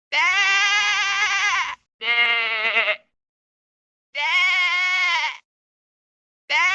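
Bleating: three wavering calls of about a second to a second and a half each, the second shorter and rougher, with a fourth starting near the end, each cut apart by dead silence as if edited together.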